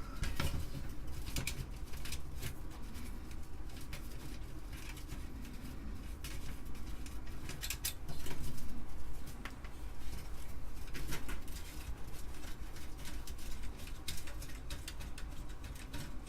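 Scattered small clicks and light metallic scraping as tabs of an Amiga 500's RF shielding are worked loose from the motherboard, with a louder spell about eight seconds in, over a steady low hum.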